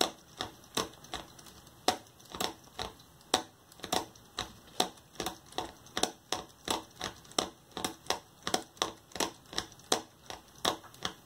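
Lego Technic gear train clicking steadily, about three sharp clicks a second, as a knob is turned to wind the string on a worm-gear-driven coil and pull the scissor-linkage fork back in.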